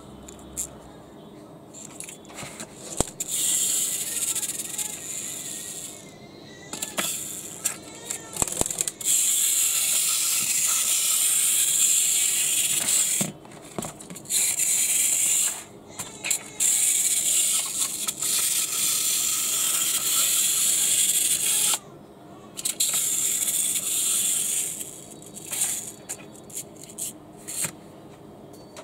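Pullback spring motors of Takara Tomy Choro-Q toy cars whirring as the cars are wound back and let go on a tabletop. The high, hissy whir comes in several stretches of a few seconds each, starting and stopping abruptly, with small clicks and knocks between them.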